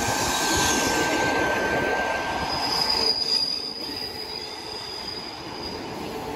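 Train wheels squealing on the rails over the rumble of a train moving through. The steady squeal jumps to a much higher pitch about halfway through, then fades near the end.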